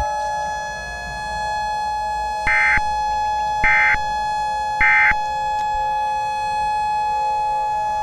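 Emergency Alert System end-of-message code: three short, identical screechy data bursts about a second apart, signalling the close of the alert. They sound over a steady electronic tone that holds throughout.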